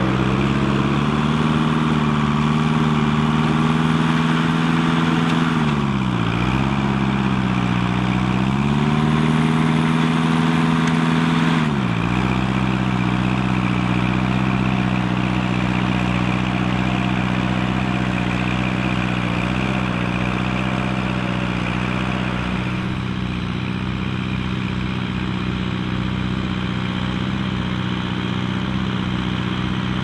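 Massey-Harris Pony 820 tractor engine running steadily while pulling a one-furrow plough through stubble. Its note sags and recovers twice around six to nine seconds in, then drops suddenly to a lower, steady pitch about twelve seconds in.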